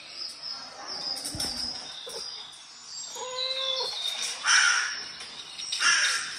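Birdsong from a CatTV bird video played through an Amazon Echo Show's speaker: high chirps throughout, one held call about three seconds in, and two loud harsh calls in the second half.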